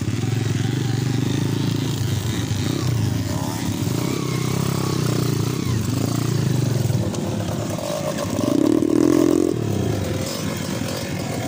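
Small underbone motorcycle engine running steadily, with a louder surge of revs about eight seconds in.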